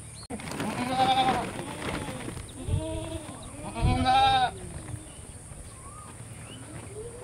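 Goat bleating several times, with wavering calls; the loudest come about a second in and about four seconds in.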